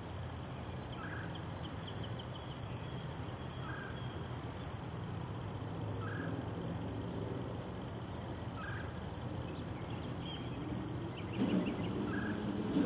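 A bird calling with a short, repeated call about every two to three seconds, with fainter chirps from other birds over a steady low hum. Near the end a low rumble starts to grow louder.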